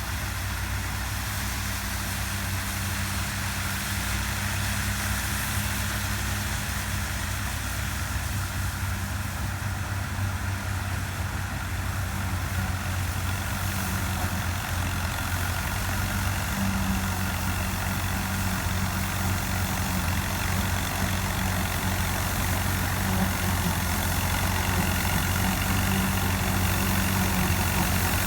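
Combine harvester running steadily while cutting wheat: a continuous engine and machinery hum that grows slightly louder toward the end.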